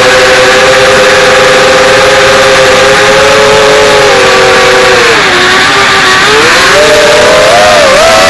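5-inch FPV quadcopter's brushless motors whining over a steady rushing hiss. The pitch holds steady, drops about five seconds in, then climbs back with quick wobbles near the end as the throttle changes.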